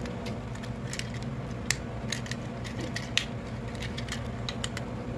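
Irregular light clicks and snaps of hard plastic as a yellow transforming robot-car toy's parts are handled and folded, two of them louder, over a steady low hum.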